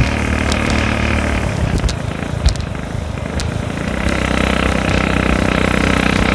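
Motorcycle engine running while riding, under wind and road noise. The engine eases off about two seconds in and pulls again at a steady pitch from about four seconds in, with a few sharp ticks in the first half, the sharpest about two and a half seconds in.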